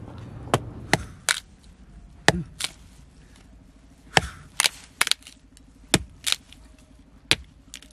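Small hand hatchet splitting kindling off a wooden log: about ten sharp chopping knocks of blade into wood, irregularly spaced and often in quick pairs.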